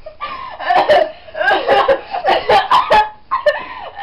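Girls laughing in repeated breathy bursts.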